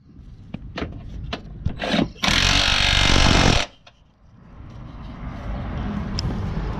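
Cordless power tool running a nut on the engine mount for about a second and a half, then stopping abruptly, after a few light clicks of the socket going onto the stud. A steady duller background noise comes up near the end.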